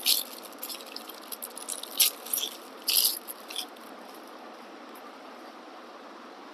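Short clicks, rattles and scrapes of a tripod phone holder being handled and fitted, loudest about two and three seconds in, stopping after about four seconds and leaving a steady background hiss.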